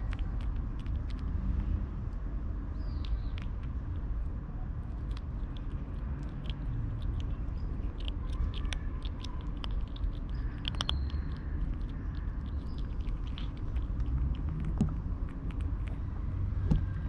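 A kitten crunching dry kibble close up: many quick, sharp crunches and clicks, over a steady low rumble.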